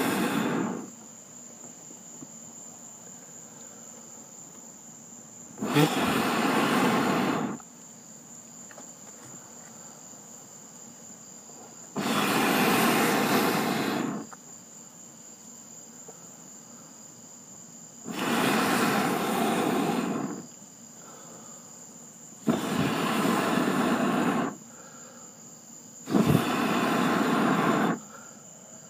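A man blowing hard on burning charcoal briquettes in a grill to get them going without lighter fluid: long breaths of about two seconds each, six in all, coming closer together toward the end. A steady high chirr of crickets runs underneath.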